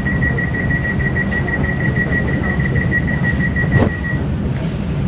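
Train carriage interior: a steady running rumble, with a high, rapidly pulsing tone that cuts off about four seconds in and a sharp knock just before it stops.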